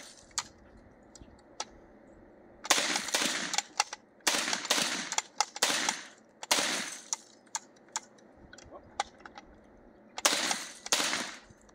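Cobray Street Sweeper 12-gauge revolving-drum shotgun, suppressed with a Rex Silentium SEG12, firing mini shells. A quick string of about five shots comes about three seconds in, and two more follow near the end. Light mechanical clicks fall between the shots.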